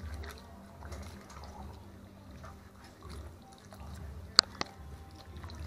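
Curry-seasoned raw chicken pieces being mixed by hand and spoon in a metal pot of marinade, with soft wet squelching and sloshing over a low rumble. Two sharp clinks come just after four seconds in.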